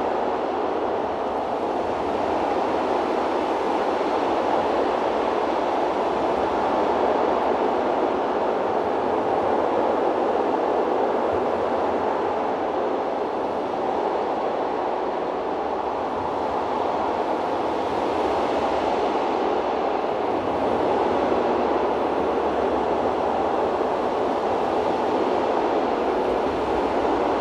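Wind sound effect: a steady, even rush of wind with slight swells and no gusts breaking through.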